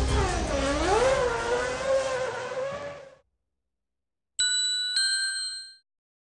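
Formula One car engine running at high revs, its pitch dropping and climbing again, then fading out about three seconds in. After a short silence comes a bright two-note chime, two ringing strikes about half a second apart: the advert's closing sound logo.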